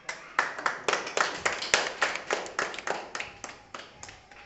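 A few people clapping their hands: sharp, separate claps a little under five a second, which thin out and stop near the end.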